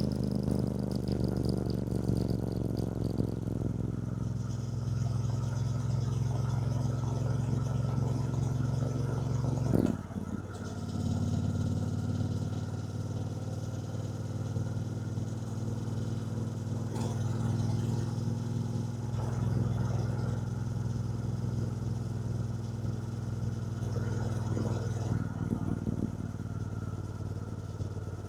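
2024 Triumph Bonneville T120's 1200 cc parallel-twin engine running steadily under way. There is a short break in the engine note about ten seconds in, then it settles back into a steady note.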